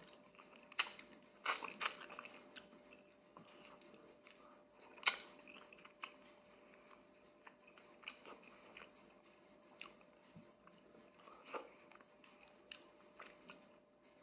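A person chewing and biting fish adobo eaten by hand, with faint wet smacks and sharp crunching clicks, loudest about a second in and again about five seconds in.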